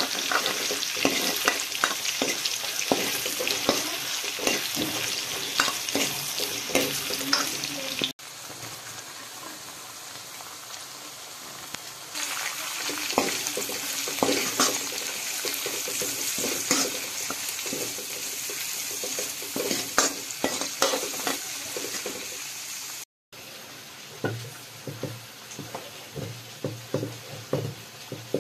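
Food sizzling in hot oil in an aluminium wok while a metal ladle stirs and scrapes against the pan, with many sharp clicks of the ladle on the metal; it first fries meat and onions, then chopped cabbage. Near the end, a few dull knocks of a cleaver on a wooden board.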